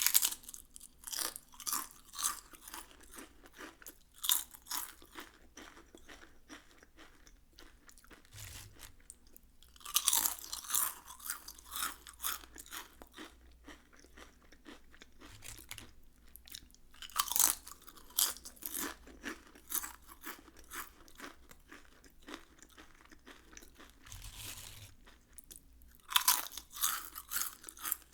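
Potato chips being bitten and chewed: bursts of sharp crunching, loudest at each new bite, with softer chewing between.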